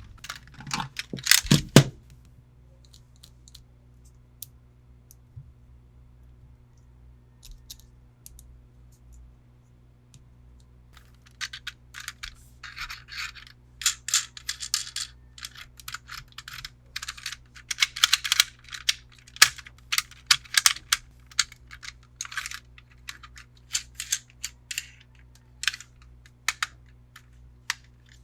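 Hands handling plastic toys and packaging: a couple of knocks at the start, then a quiet stretch with faint ticks, then, from a little before the middle on, a dense run of irregular clicks, taps and short rustles.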